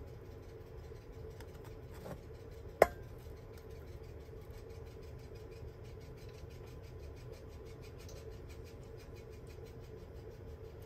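Steady low background hum with a faint constant tone, broken by one sharp tap about three seconds in.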